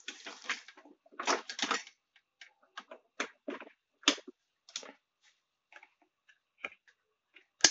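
Irregular handling clatter on a workbench: a string of short clicks, knocks and rustles with gaps between them, ending in one sharp, loud click.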